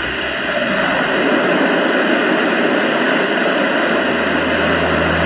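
Fast-moving floodwater rushing over a flooded road: a loud, steady rush of turbulent water. A low hum joins in near the end.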